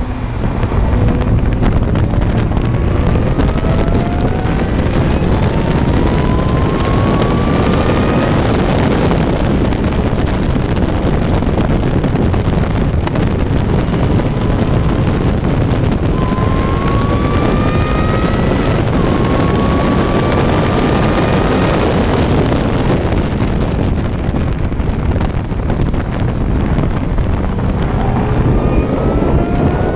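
Racing engine at full throttle, its pitch climbing in long rises through the gears several times, with heavy wind buffeting on the microphone.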